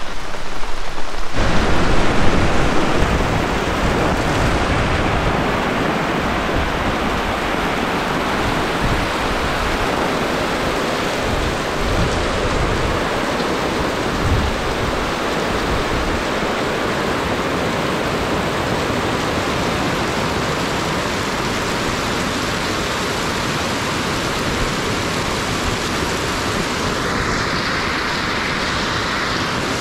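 Heavy rain pouring down in a dense, steady hiss, with a low rumble underneath that comes in suddenly about a second in.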